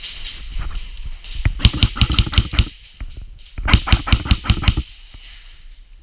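Airsoft guns firing in rapid bursts: scattered shots, then two strings of fast sharp clacks about a second long each.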